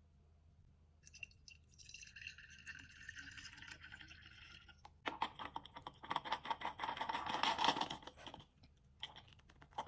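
Handling noise from unpacking steam cleaner parts: plastic packaging rustling and scraping, then a denser crinkling and crackling stretch of a few seconds.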